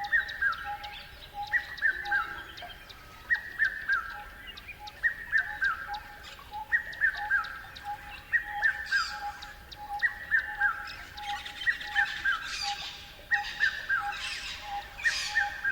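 Birds calling: one bird repeats a short phrase of a few falling notes about every 1.7 seconds, over a steady lower pulsing call and quick ticking. From about halfway through, raspier, hissing calls join in.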